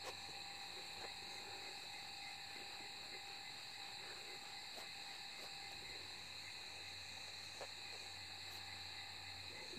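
Steady night-time chorus of crickets, a continuous high-pitched trilling with no break, with a few faint soft clicks and knocks close by.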